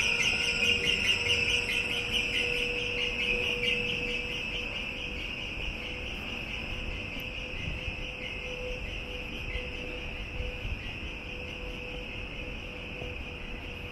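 Crickets trilling in rapid, evenly repeated pulses, loudest at the start and fading gradually, over a faint steady hum.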